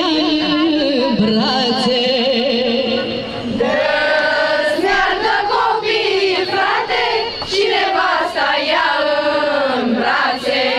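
Romanian folk song about carters and their wagons: a melody held in long notes with heavy vibrato, turning busier from about four seconds in.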